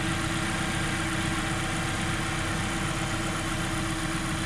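Mazda CX-5's four-cylinder Skyactiv-G petrol engine idling steadily, heard from the open engine bay.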